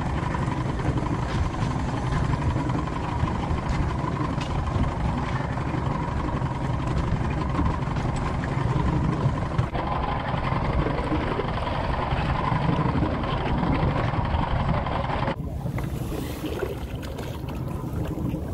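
A 200-horsepower outboard motor running steadily at trolling speed, with wind on the microphone and water washing past the hull. The sound shifts abruptly about ten seconds in, and again about fifteen seconds in, where the steady engine hum drops away.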